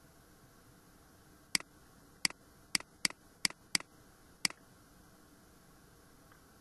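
Computer mouse button clicked seven times, sharp single clicks spread over about three seconds, over a faint steady hiss.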